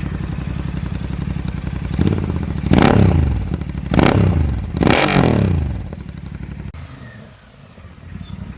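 Royal Enfield Continental GT 650's 648 cc parallel-twin running open with its silencers removed: a steady idle, then three quick throttle blips about three, four and five seconds in, each rev falling back. The sound then drops much lower for about two seconds near the end.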